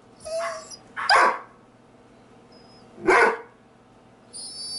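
Dog barking: two loud, sharp barks about two seconds apart, the first led by a softer yip. A high, thin whine comes near the end.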